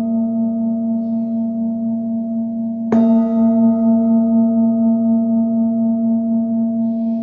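A singing bowl ringing with a steady low tone and several higher overtones. It is struck again about three seconds in, which renews the ringing.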